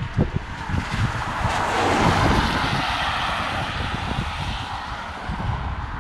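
A vehicle passing by: a rush of noise that swells over the first two seconds and fades away by about five seconds in, with wind buffeting the microphone throughout.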